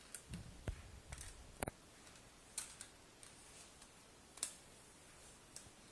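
Plastic toy car parts being handled and fitted together: a few light knocks in the first second, then scattered sharp clicks, the sharpest about one and a half seconds in.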